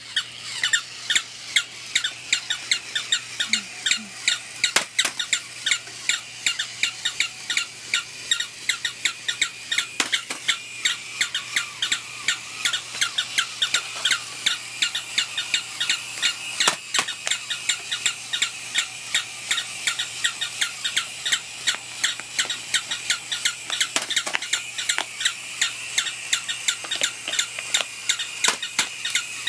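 Electronic flipping toy dogs yapping through their small speakers: high-pitched electronic barks, about three a second and overlapping, with a few sharp clicks among them.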